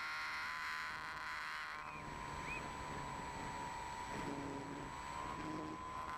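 Electric motor and propeller of an E-flite Apprentice RC plane whining steadily, picked up by an onboard camera, with wind rushing over the microphone. About two seconds in, the higher buzz drops away, leaving a steadier whine that rises slightly in pitch near the end.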